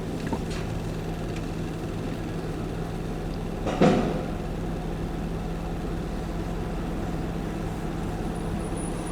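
Steady low mechanical hum, with one loud knock just under four seconds in.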